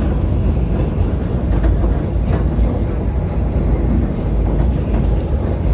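Passenger train running along the track: a steady low rumble with a few faint clicks about two seconds in.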